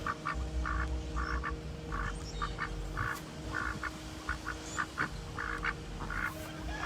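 Pekin ducks quacking, a rapid run of short quacks at about three a second, over a faint steady hum.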